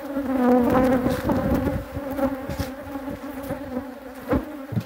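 Honeybees buzzing: a steady hum of many bees, loudest in the first second or two, when single bees rise and fall in pitch as they fly close past the microphone. A brief knock sounds near the end.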